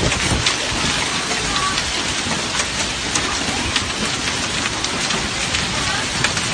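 Heavy rain pouring down in a steady, dense hiss, with many sharper drop hits on hard surfaces.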